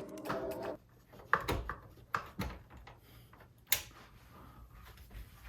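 Scattered light clicks and knocks of computer hardware being handled and set up, with one sharper click a bit past the middle. Background music ends within the first second.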